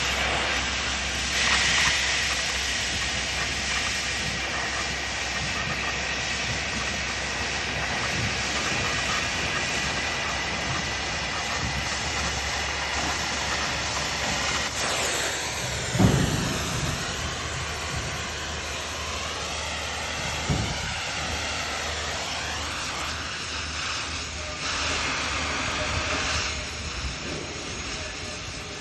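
Oxy-fuel cutting torch running with a steady hiss as it cuts a steel pipe elbow, with one sharp knock about halfway through.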